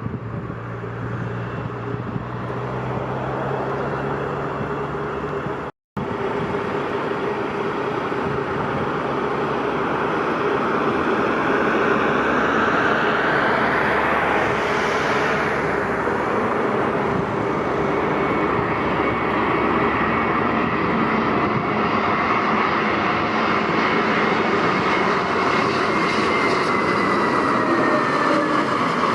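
Jet airliner engines roaring past at close range, with a steady whine. The sound builds after a short break near the start and stays loud, shifting in pitch as the aircraft goes by.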